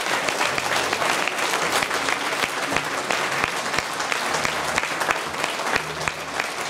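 Crowd applauding steadily: many hands clapping together.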